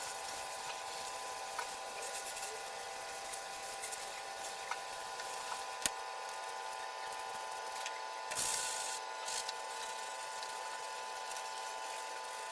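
Pet hair dryer running steadily, a motor hum with a few steady tones over rushing air. A sharp click comes about six seconds in, and a brief louder burst of noise a little after eight seconds.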